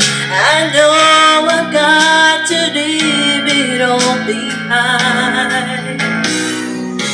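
Karaoke backing track of a pop ballad, sustained chords under a melodic lead line that scoops up near the start and wavers later, with a woman singing along into a handheld karaoke microphone.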